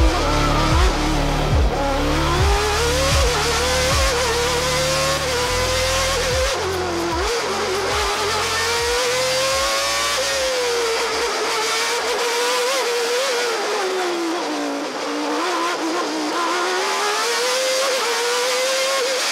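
Formula One car's engine heard from the onboard camera, running at high revs, its pitch rising and falling through gear changes and corners. A pulsing low bass beat from background music sounds under it and fades out about twelve seconds in.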